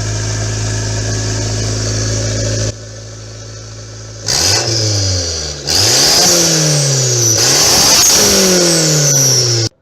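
Turbocharged Toyota 4E four-cylinder engine running at a steady idle, then revved about three times, its pitch rising with each throttle blip and falling back as it settles. It cuts off abruptly near the end.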